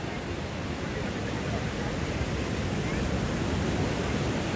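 Ocean surf breaking and washing up the beach, a steady rushing that swells slightly about a second and a half in.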